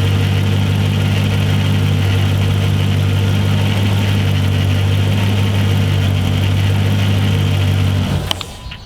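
Car engine idling steadily, then cutting off abruptly about eight seconds in, followed by a couple of faint clicks.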